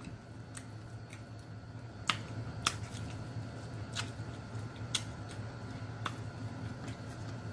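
Eating sounds: sharp, scattered mouth smacks and clicks, roughly one a second, while a piece of sausage is chewed and handled with long acrylic nails. A low steady hum sits underneath.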